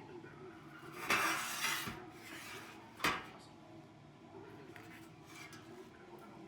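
Metal clattering: a rattle about a second in, then one sharp clank about three seconds in, as a stainless steel hood filter is handled in a dishwasher rack.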